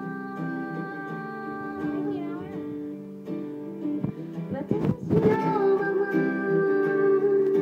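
Background music: a Japanese pop song with acoustic guitar and a singing voice.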